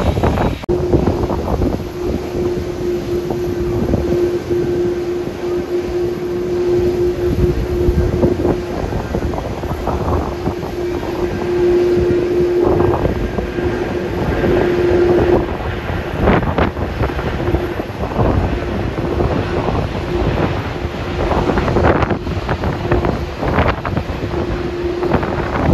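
Airbus A330-300's Rolls-Royce Trent 700 jet engines giving a steady hum under heavy, gusty wind buffeting on the microphone.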